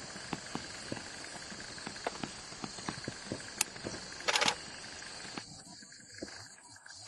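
Outdoor ambience of steadily chirping insects, with scattered sharp clicks and one loud, harsh half-second burst about four seconds in. The background thins out abruptly about five seconds in.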